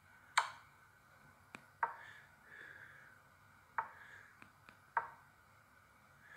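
Chess.com app move sound effects: four sharp wooden clicks of pieces being set down, one for each move as the players trade quick checks and rook moves. A few fainter ticks fall between them.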